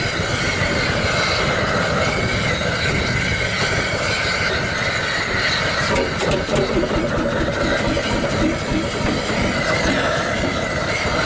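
HSCS Red Star G-35 hot-bulb semi-diesel tractor's single-cylinder two-stroke engine running steadily.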